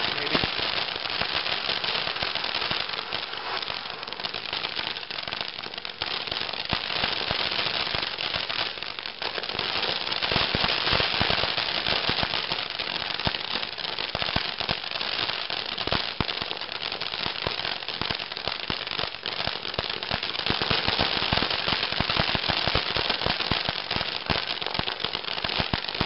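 Ground fountain firework spraying sparks: a steady hiss packed with dense, continuous crackling, a little louder from about ten seconds in.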